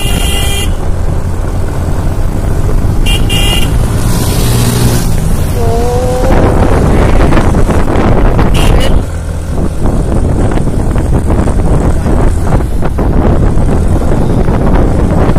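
Loud rushing and low rumble of riding a scooter at speed on a road, with short vehicle horn toots at the start, about three seconds in and about nine seconds in.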